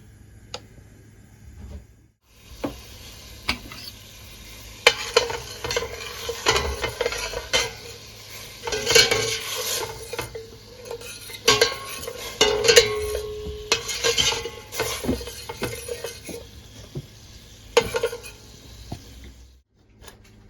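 A spoon stirring honey as it warms in a saucepan, scraping and clinking against the pan in irregular bouts. Some of the knocks leave a short ringing note.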